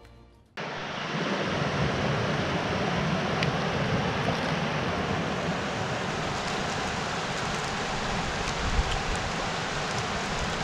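Steady rush of a shallow river running over boulders, starting abruptly about half a second in.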